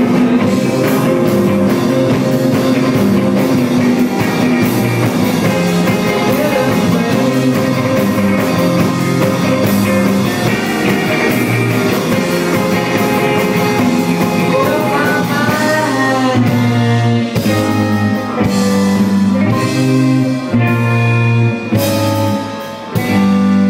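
Live rock band playing loud, electric guitars to the fore. About fifteen seconds in, a rising guitar bend leads from the dense, continuous playing into separate, punched chords with short gaps between them, with a brief break near the end.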